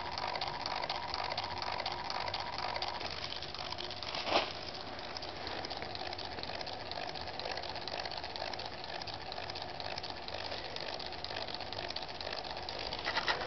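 Homemade stepper motor with hand-wound coils and a magnet rotor running, giving a steady fast rattling, with a faint steady tone for the first few seconds. A single knock comes about four seconds in.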